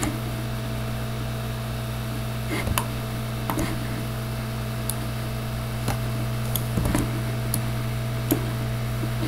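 A steady low hum with a few fixed tones, and about seven sharp clicks of a computer mouse scattered from a few seconds in.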